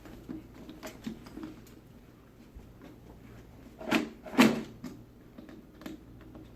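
Plastic toy track pieces and packaging being handled out of the box: faint rustling and small clicks, then two louder plastic clacks about four seconds in.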